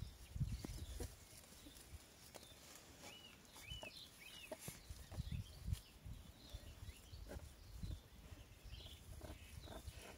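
Newborn West Siberian Laika puppies shifting about in straw bedding: faint rustling and soft thumps, with three short high chirps about three to four seconds in.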